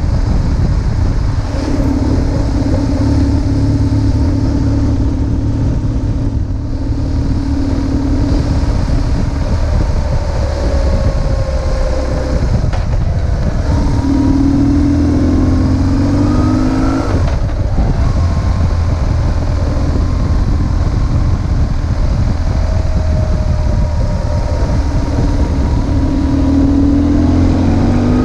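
BMW R1150GS's air/oil-cooled flat-twin boxer engine pulling the bike along over a steady rush of wind. Twice the engine note climbs as it accelerates, and in the middle it breaks off suddenly, as at a gear change.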